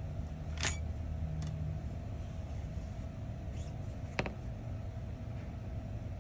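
A few light clicks and taps from fingertips pressing and adjusting a protective skin film on the back of a phone, the sharpest about four seconds in, over a steady low background hum.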